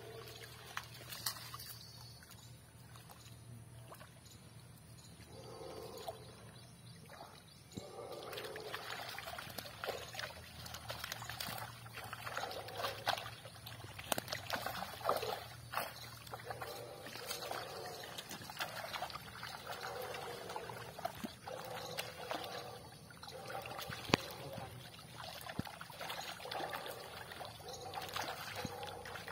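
Shallow pond water sloshing and trickling as a fine-mesh drag net is pulled and lifted through it by people wading, with water running off the mesh and irregular small splashes.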